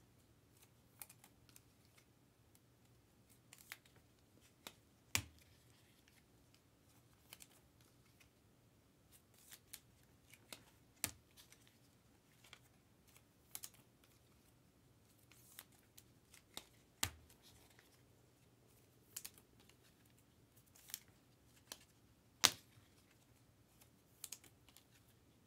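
Chrome trading cards being handled and slid into plastic card sleeves: scattered faint rustles and sharp little clicks and taps of card and plastic, a few of them louder as cards are set down.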